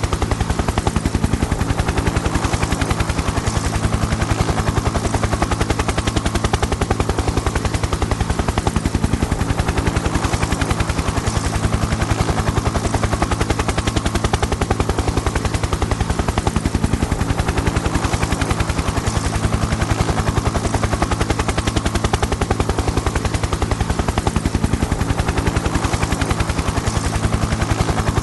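Helicopter running steadily, its rotor blades chopping in a fast, even beat over a constant low drone.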